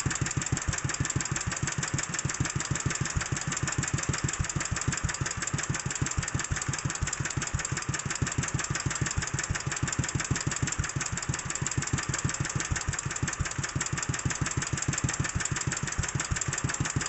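Vintage air-cooled small engine idling very slowly in a steady, even beat of firing pulses. It is held below its governed idle speed by a screwdriver on the throttle linkage, because the governor will not let it run that slow.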